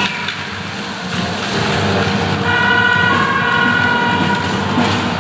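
Fans' noisemaking in a sports hall: drums beating under a horn blowing held notes, with one long blast from about halfway through to about 4 s in.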